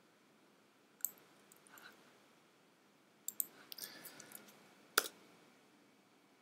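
Computer keyboard and mouse clicks. There is a single click about a second in, a quick run of clicks between three and four and a half seconds, and one sharp, louder click about five seconds in.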